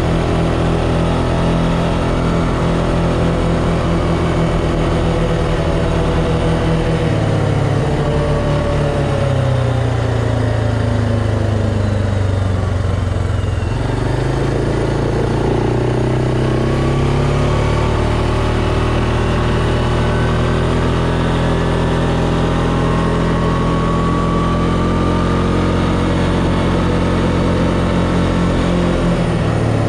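Suzuki KingQuad 400 ASI ATV's single-cylinder engine running under way. Its pitch falls as the quad slows, from about a quarter of the way in to near the middle, then rises steadily as it accelerates back up to speed.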